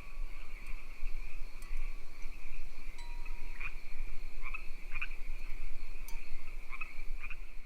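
A chorus of frogs and insects: a steady, high trilling with short croaking calls breaking through now and then.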